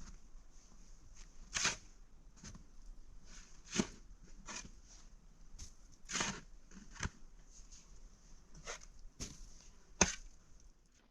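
Irregular sharp knocks and clicks, about eight of them at uneven gaps, the loudest near the end, over a faint steady hiss.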